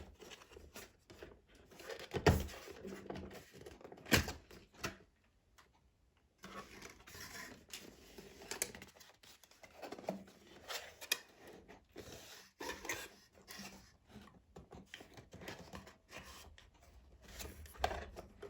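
Perfume box and its packaging handled by hand: irregular rustling, tearing and scraping with many sharp clicks, and two louder knocks about two and four seconds in.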